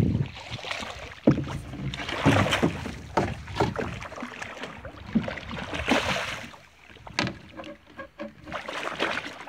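Water splashing and sloshing beside a small boat as a hooked catfish is brought to the surface, with scattered knocks and handling noises.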